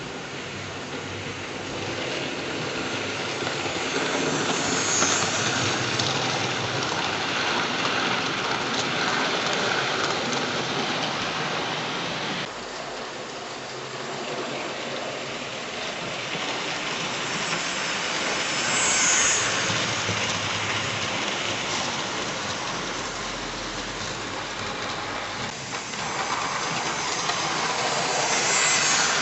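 00 gauge model train, a Stanier 8F locomotive hauling car carrier wagons, running on the track: a continuous rolling rattle of wheels on rail, growing louder and fainter as the train passes.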